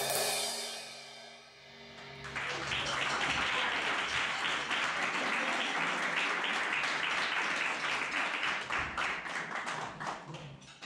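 A last crash cymbal and the song's final chord ring out and die away, then an audience applauds from about two seconds in, thinning out near the end.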